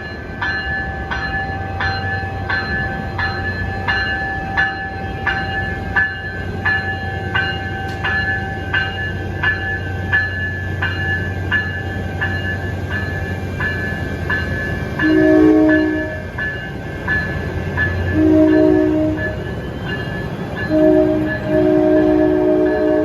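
A railroad grade-crossing bell dings steadily, a little under two strikes a second, over the rumble of a train for the first part. A diesel-electric locomotive horn then sounds the crossing signal: two long blasts, a short one and a final long one.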